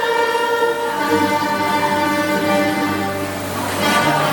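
Background music with sustained string melody and bass, in an orchestral style.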